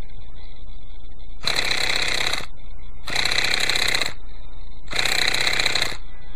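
Electric starter spinning the Quickie 18 helicopter's glow engine in three bursts of about a second each, with short pauses between; the engine does not fire, the hard-starting fault the owner is chasing.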